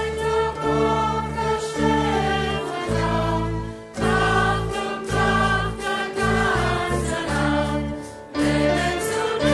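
Live band and choir performing a song: several voices singing together over sustained low bass notes, with brief dips in the music about four and eight seconds in.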